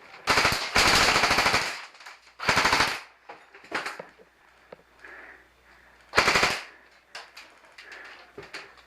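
Airsoft guns firing rapid automatic bursts, a long burst in the first two seconds, a short one near three seconds, and another about six seconds in.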